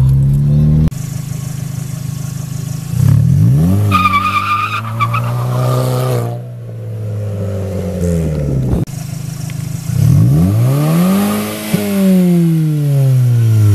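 Mk4 Volkswagen Golf engine revving hard, with a short high tyre squeal about four seconds in. About ten seconds in it revs up again to a peak, and the pitch then falls away.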